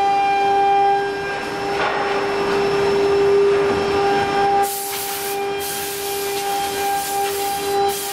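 CNC router machinery running with a steady high whine. In the second half it is broken by several bursts of hiss as the machine unloads the finished MDF panels off its bed.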